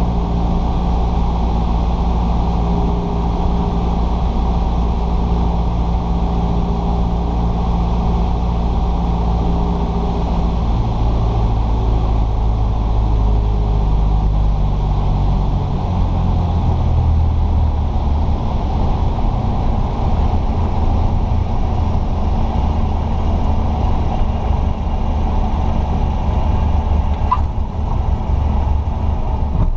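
Cessna 172S's Lycoming four-cylinder engine and propeller heard from inside the cabin as a steady drone that drops in pitch twice, as the throttle is pulled back on final approach. A brief click comes near the end.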